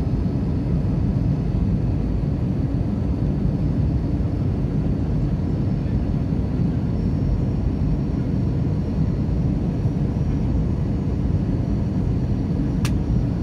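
Steady airliner cabin noise in flight: engine and airflow noise, heaviest in the low end, with a faint steady whine over it. One short sharp click near the end.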